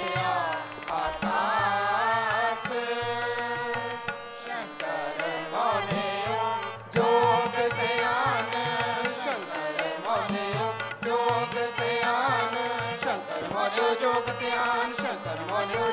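Devotional shabad kirtan in raag Shudh Basant: singers run wordless melodic phrases over harmonium and tabla. About seven seconds in the music briefly drops and comes back louder.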